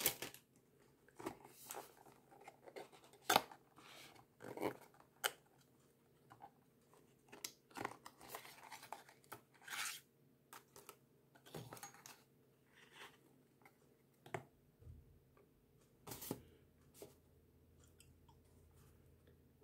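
Quiet handling of a cardboard perfume box as it is opened and the bottle is slid out: scattered short scrapes, rustles and taps of paperboard.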